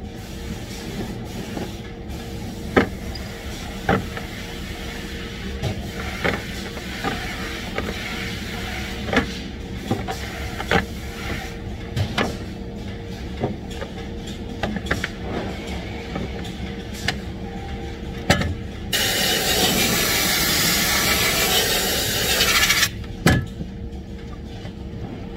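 Rubber hoses knocking and clacking against a wooden jig as they are handled, over a steady machine hum. Near the end comes a loud hiss of compressed air from an air blow gun, lasting about four seconds, followed by a few more knocks.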